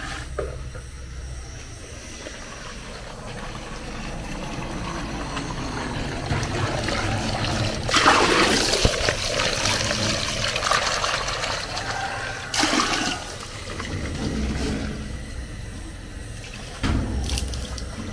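Water pouring and splashing. It builds to its loudest about eight seconds in and then eases off, with short splashes about twelve and seventeen seconds in.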